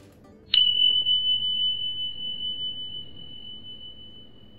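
A single bright chime-like ding, struck once about half a second in, ringing on one high tone that fades slowly over several seconds.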